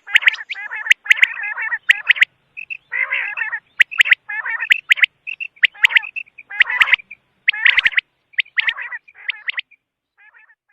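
Quail calling in a rapid string of short, raspy, repeated calls with sharp clicks among them. The calls thin out and grow faint near the end.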